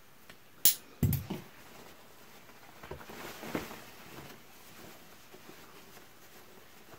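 A cotton dress shirt being handled and turned over on a cutting table. A sharp click comes a little under a second in, then a knock about a second in, and soft fabric rustling around three to four seconds in.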